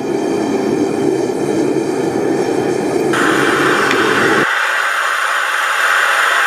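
Propane forge burner hissing steadily. Its tone changes abruptly, turning brighter about three seconds in and losing its low rumble a second and a half later.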